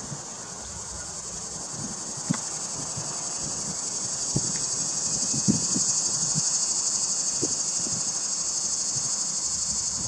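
Steady high-pitched insect chorus, growing gradually louder toward the middle and easing slightly near the end, with a few soft low knocks scattered through it.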